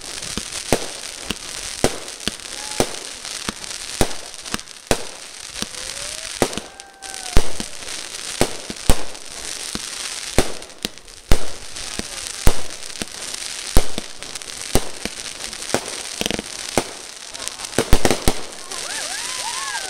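Aerial fireworks bursting overhead: an irregular, rapid series of sharp bangs, about one or two a second, over a steady hiss.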